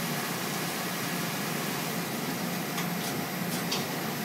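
Willemin Macodel W408B five-axis mill running a spring pass in stainless steel under flood coolant: a steady hiss and hum of coolant spray and spindle. A few faint ticks come about three seconds in.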